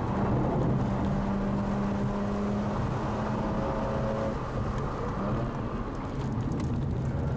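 Mazda RX-8's Renesis rotary engine running at a steady pitch under track driving, heard from inside the cabin. It eases off about four and a half seconds in, then picks up again.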